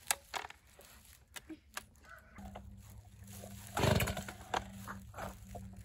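Stihl chainsaw's starter cord pulled once, a loud short rasp about four seconds in, after a few sharp handling clicks; a low steady hum runs underneath from about halfway through, with faint poultry calls.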